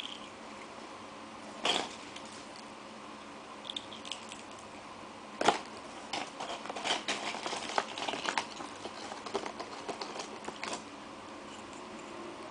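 Crisp Tongari Corn snack cones being handled: light clicks and crinkling, with a sharp click about a second and a half in and another about five and a half seconds in, then a flurry of small clicks between about six and eleven seconds in.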